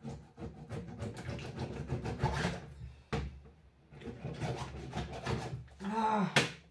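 Knife scraping and cutting against a wooden cutting board as the membrane is trimmed off raw liver, in irregular strokes. Near the end there is a brief squeak followed by a sharp click, the loudest moment.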